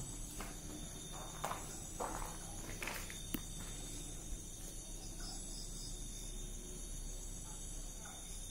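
Insects chirping in a steady high-pitched chorus, with a few footsteps and soft knocks during the first three or four seconds.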